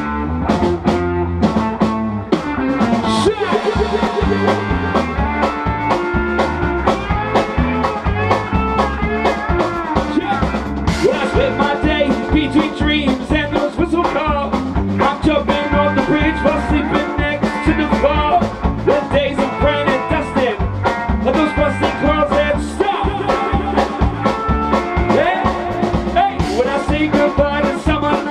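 A rock band playing a song: electric guitars, bass guitar and drum kit with a steady beat, loud throughout.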